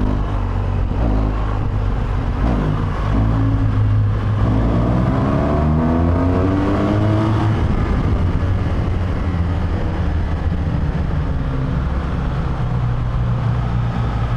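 BMW GS Adventure's boxer-twin engine running under way through a road tunnel, with wind rush on the microphone. For a few seconds near the middle the engine note rises as the bike accelerates, then it settles to a steady run.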